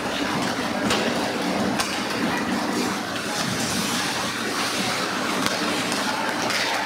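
Ice hockey play in an indoor rink: a steady rush of skate blades on the ice with a few sharp clacks of sticks and puck, over a steady low hum from the arena.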